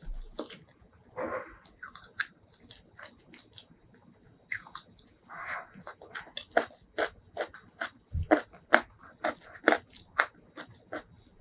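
Close-miked chewing of a mouthful of rice and curry eaten by hand, with wet mouth smacks and clicks that come two or three times a second in the second half.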